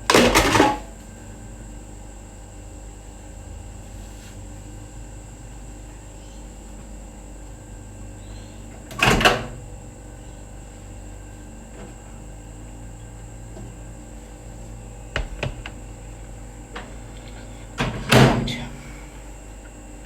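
Food containers and lids being handled and put away, with three loud clattering knocks about nine seconds apart and a few lighter clicks before the last, over a steady hum.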